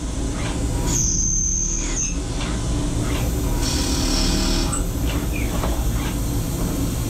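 Tornos DT 26 Swiss-type CNC lathe turning a spool valve dry with custom carbide form tools, the spindle running steadily as the tools feed in. The cut carries the ch-ch-ch-ch chatter of Tornos ACB oscillation, which breaks the chips, and a high thin whine comes in for about a second near the start.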